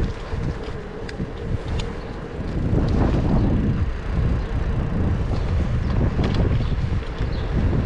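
Wind rushing over the microphone of a camera moving along on a bicycle: a steady low rumble that gets louder about three seconds in, with a few faint ticks.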